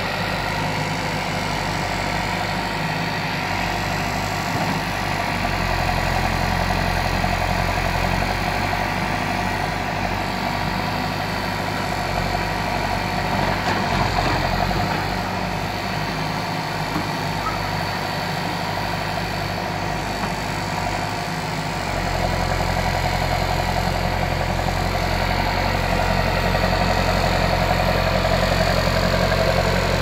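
Escorts backhoe loader's diesel engine running steadily. Its low note swells and drops a few times as the machine works, and is strongest in the last third.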